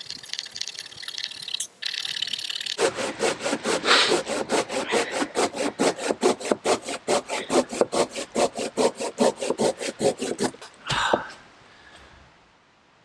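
Silky Gomboy folding pull saw cutting through a log in fast, even strokes, about six a second, the footage sped up. A brief thump comes about eleven seconds in as the sawing stops.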